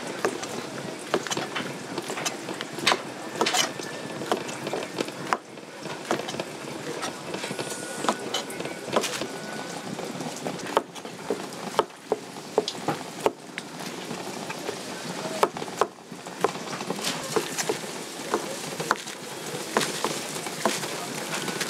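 Food-stall clatter: many irregular clicks and light knocks over a steady background hiss.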